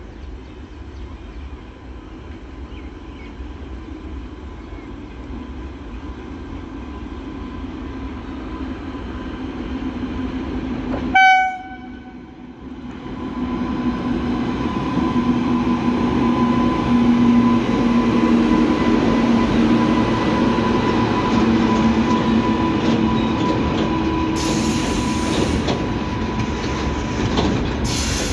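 WAG-9 electric locomotive approaching with a rising rumble, then one short, loud horn blast about eleven seconds in. The locomotive then passes close with a steady humming drone, and the BOXN open wagons rumble by along the rails, with bursts of high wheel screech near the end.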